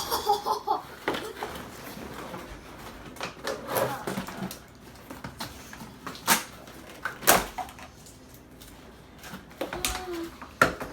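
Toy packaging being handled and opened: scattered rustling with sharp clicks and knocks, the loudest about six and seven seconds in.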